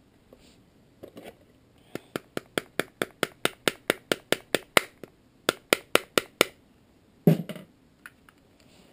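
Metal and plastic parts of a Hi-Capa airsoft pistol being worked by hand while a pin is put in: a rapid, even run of about twenty sharp clicks, about five a second, then a single louder knock near the end.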